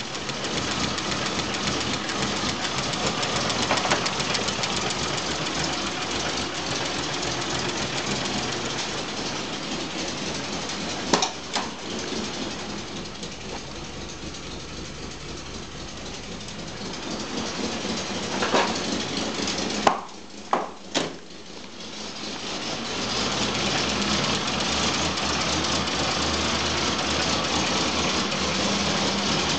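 Volvo 960-series 2.5-litre straight-six engine running at a rough idle. A few sharp knocks or clicks come through near the middle, and the engine sound dips quieter for a while before it steadies again.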